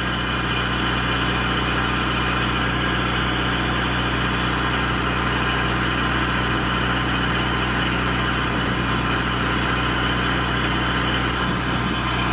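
12 kW Wanchai diesel standby generator with a QC480D engine running steadily at its governed speed: an even, unchanging engine hum, which the owner calls pretty quiet.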